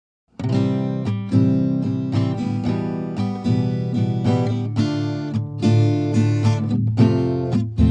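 Background music: strummed guitar with a steady rhythm, starting about a third of a second in after digital silence.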